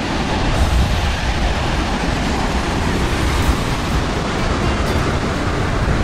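Large waterfall crashing into its pool: a loud, steady rush of falling water with a deep low rumble.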